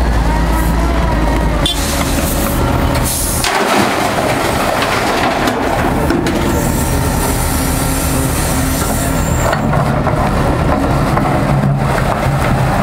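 Diesel engine of a Liebherr 944 C crawler excavator running under load while it loads rock. About four seconds in, a dense rattle of rock and soil against the dump truck's steel tipper body joins the engine.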